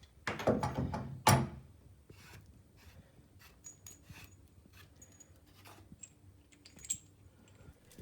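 Shower hose and its metal fittings being handled and unscrewed by hand: a couple of louder knocks in the first second and a half, then faint scattered small clicks and ticks.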